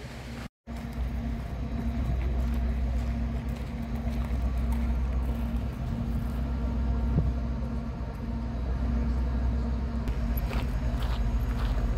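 Diesel locomotive engine idling, a steady low hum. The sound drops out briefly about half a second in.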